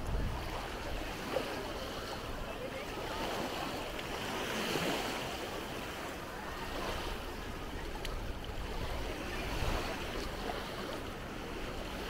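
Small Baltic Sea waves washing in over the shallows, with faint voices of a crowded beach in the distance and a low wind rumble on the microphone.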